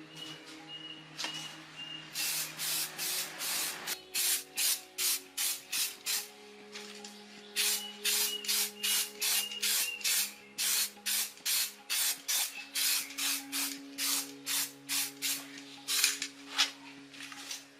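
Rhythmic abrasive strokes worked by hand, like sanding or scrubbing, at about two to three strokes a second. They pause briefly twice.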